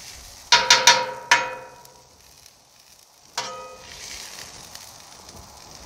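Metal spatula scraping and clanking against the steel cooktop of a Blackstone griddle while sliced onions are stirred: a quick run of about four ringing clanks in the first second and a half, then one more about three and a half seconds in. Onions fry with a faint sizzle underneath.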